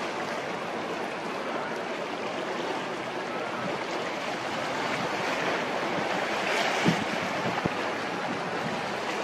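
Steady wind and choppy harbour water noise, swelling a little midway, with two short thumps late on.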